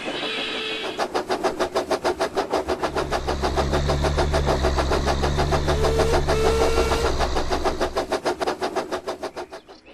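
An engine running with a rapid, even chugging rhythm of about five beats a second, with a deeper rumble in the middle, fading away near the end.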